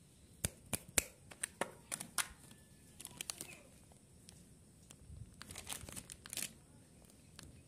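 Plastic candy wrappers, among them a Lino chocolate wafer bar's, crinkling as they are picked up and handled. Sharp irregular crackles come in a run from about half a second to two seconds in, a few more around three seconds, and another run near six seconds.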